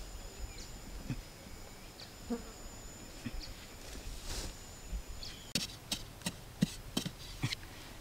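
Insects calling with two steady high tones through the first half or so, over light scuffing of hands in dry soil. From about five and a half seconds in, a run of about eight sharp knocks, a few a second.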